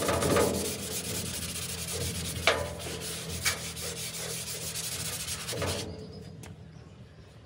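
Paintbrush scrubbing primer back and forth on a sanded metal signboard, a continuous rubbing that stops about six seconds in, with two sharp clicks around the middle.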